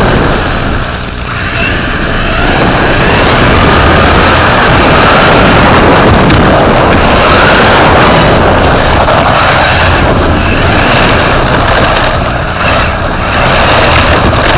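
Loud, rushing onboard noise from a radio-controlled rally car on the move, heard through a microphone riding in the car: wind and road noise, with a faint motor whine rising and falling. The level dips briefly about a second in and again near the end.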